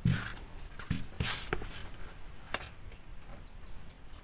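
Hands handling cloth and material on a cloth-covered table: soft rustling and a few light taps as a ruler is set down, over a faint steady high-pitched whine.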